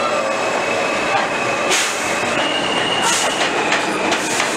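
NYC subway train pulling out of the station: its motors whine in steady tones while the wheels clack sharply over rail joints a few times.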